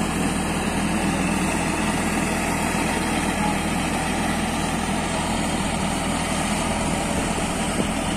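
Heavy construction machine's diesel engine running steadily at a constant pace.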